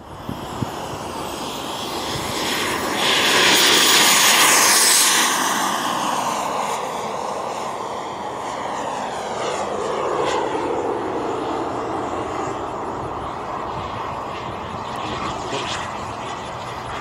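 BVM Ultra Bandit RC jet's turbine engine running in flight, a loud whining rush. It peaks about three to five seconds in, then drops in pitch and settles into a steadier, somewhat quieter rush.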